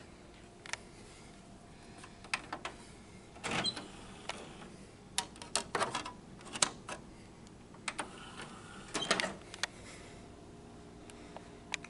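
Scattered plastic clicks and short clatters of a DVD being loaded into a Toshiba DVD player, the disc and tray mechanism knocking, over a faint steady hum.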